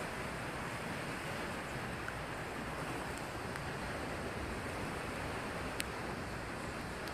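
Surf breaking and washing against a rocky shore, with wind, a steady rushing noise. One brief sharp click near the end.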